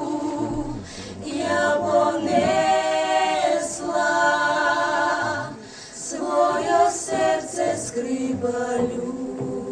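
A group of voices singing a cappella in long held notes.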